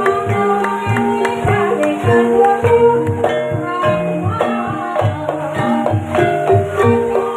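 Banyumas ebeg accompaniment music: gamelan-style mallet instruments playing interlocking pitched notes over a steady, driving hand-drum beat.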